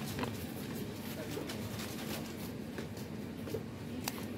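Steady low background hum with a few faint, scattered clicks and knocks.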